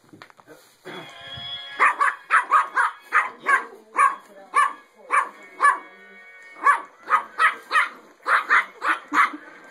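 Yorkshire terrier puppy barking over and over, sharp yappy barks about two a second with a short pause in the middle, at a singing penguin toy whose electronic tune plays underneath.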